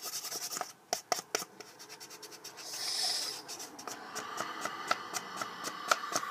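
Black felt-tip marker scratching over a cardboard toilet-paper tube as it is coloured in, with sharp clicks in the first second and a half. A thin, steady squeak sets in about four seconds in.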